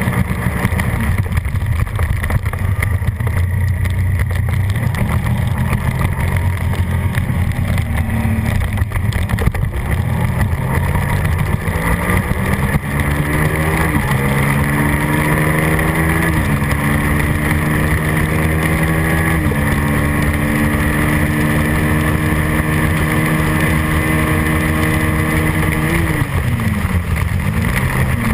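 Suzuki SV650's V-twin engine at race pace with wind rushing past the onboard microphone. About halfway through it revs up and shifts up three times in quick succession, each shift a sudden drop in pitch, then holds high revs on the straight. Near the end the pitch falls as the throttle is closed and it downshifts, then climbs again.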